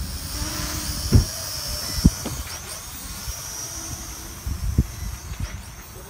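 Small multirotor drone flying overhead, its electric motors and propellers giving a steady high whine that bends in pitch a few times as it manoeuvres. Wind rumbles on the microphone, with three low thumps: about a second in, about two seconds in, and near five seconds.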